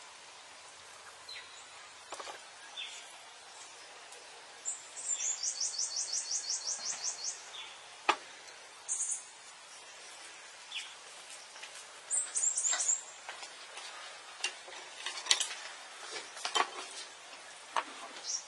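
A small bird singing high, rapid trills of repeated notes: one lasting about two and a half seconds, then shorter bursts. Scattered sharp clicks and taps of a cleaver against a ceramic bowl as raw pork is cut and handled; the loudest come about eight seconds in and again around fifteen seconds.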